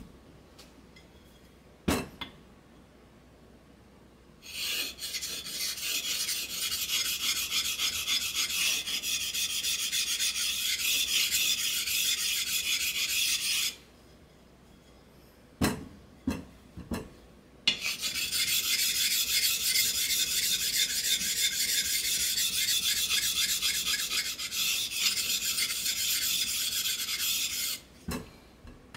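A wet whetstone scrubbed back and forth against a coarse flattening stone to true its face: two long spells of fast, gritty rasping, each about nine to ten seconds, with a few sharp knocks of the stone being set down before, between and after them.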